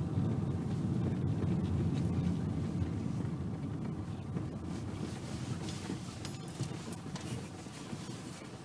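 Car driving slowly on a gravel track, heard from inside the cabin: a low rumble of engine and tyres that fades as the car slows, with a few small clicks.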